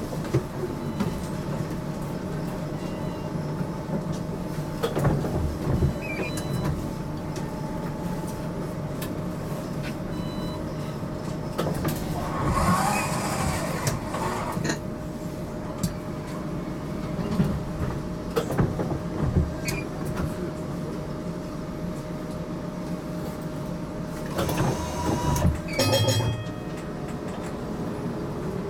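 GTL8 articulated tram running, heard from inside: a steady low rumble of motors and wheels on the rails with scattered knocks and clatter. Near the end a motor whine rises in pitch as the tram speeds up.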